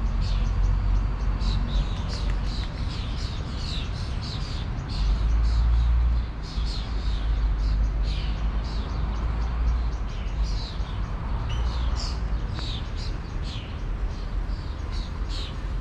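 Small birds chirping, with quick falling chirps several times a second, over a low steady rumble that swells briefly about five seconds in.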